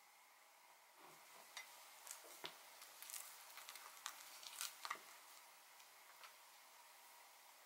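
Fluffy clay slime being pressed and stretched by hand, giving faint scattered clicks and squishes from about a second in for roughly four seconds.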